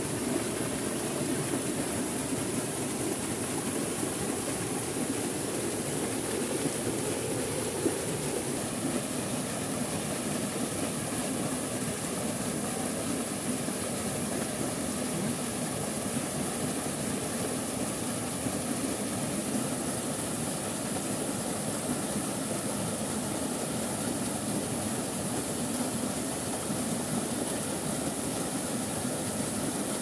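Small waterfall pouring into a shallow rocky pool: a steady rush of falling water.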